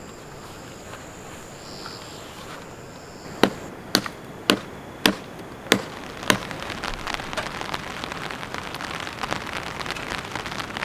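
Steady hiss with a faint high steady tone, then about three and a half seconds in six sharp clicks roughly half a second apart, followed by a dense patter of rain.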